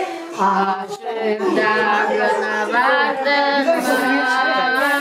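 Voice singing an Islamic devotional hymn (ilahi) in long, wavering, drawn-out notes, with a held note near the end.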